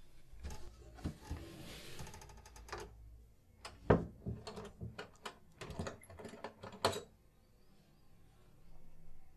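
Rustling as cloth and a cardboard box are handled. Then a key goes into a wooden door's lock and is turned, giving a run of sharp metallic clicks; the loudest comes about four seconds in.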